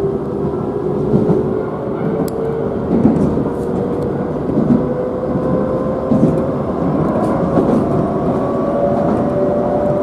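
Keisei Oshiage Line electric train heard from inside the carriage, its traction motor whine rising slowly in pitch as the train gathers speed after a station stop, over a steady rumble of wheels on rail.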